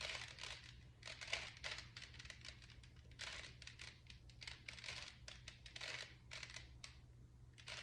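Rubik's Cube being turned in the hands: a quick, irregular run of plastic clicks and scrapes as the layers are twisted.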